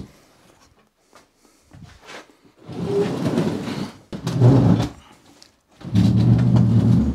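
Heavy OSB cabinet carcass pushed across the floor in three shoves, each scraping for about a second, the last near the end.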